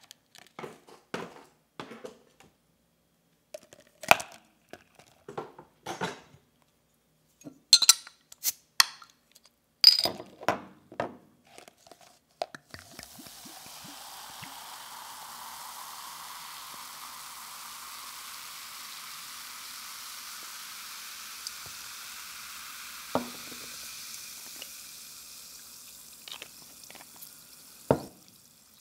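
A run of clinks and knocks as big ice cubes go into a plastic cup. Then, about 13 seconds in, tonic water is poured over the ice in a steady fizzing pour that lasts about 14 seconds. Near the end a knock comes as the glass bottle is set down.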